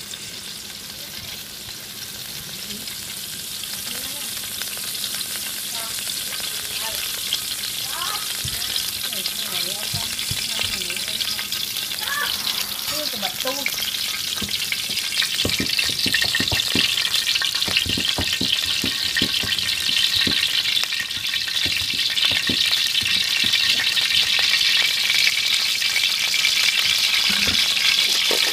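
Hot oil sizzling in a steel wok, growing steadily louder, with a metal wok spatula scraping and knocking against the pan. By the end, chopped garlic is frying in the oil.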